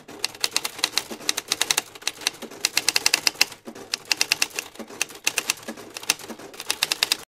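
Typewriter keystroke sound effect: rapid, sharp clacks in runs with short pauses, keeping time with on-screen text being typed out letter by letter.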